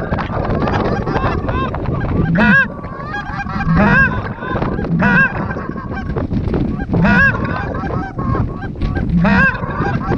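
Canada geese honking and clucking: loud, rapid honks, several overlapping, coming about once a second through the whole stretch.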